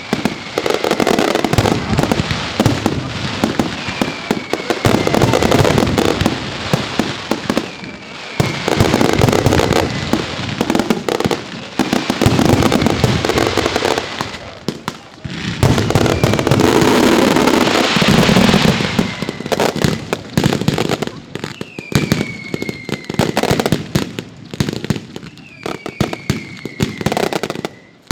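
Professional fireworks show: a dense, continuous run of shell bursts and crackling, loudest about two thirds of the way through, with short whistles falling in pitch every few seconds.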